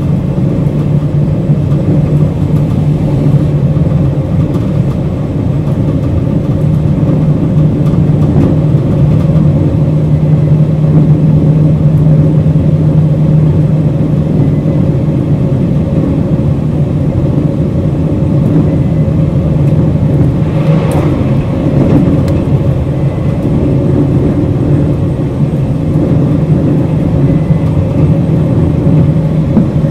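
JR Hokkaido 721 series 0-subseries electric multiple unit running, its thyristor phase-controlled traction equipment giving a steady hum over wheel-on-rail noise. A brief louder rushing noise comes about two-thirds of the way through.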